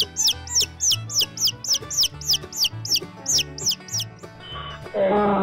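Baby chicks peeping: a quick, even run of high, falling cheeps, about three a second, over soft background music. About four seconds in the cheeps stop, and near the end a louder, drawn-out call of a larger animal begins.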